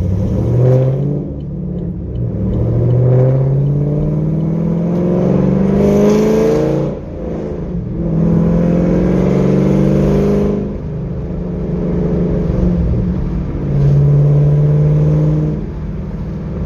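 Chevrolet Camaro SS V8 with aftermarket headers accelerating: engine pitch climbs steadily for about four seconds, breaks off at a gear change about seven seconds in, then holds high revs before easing off, and pulls again briefly near the end.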